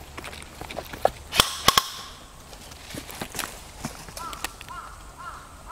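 Sharp cracks of airsoft fire in a skirmish, a quick cluster of four loud ones between about one and two seconds in, then scattered lighter clicks, over footsteps on leaf-littered dirt.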